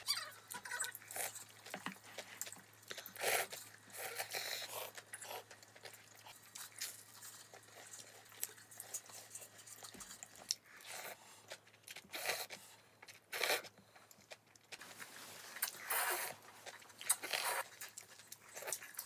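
A person eating close to the microphone: chewing and biting food, in irregular bursts.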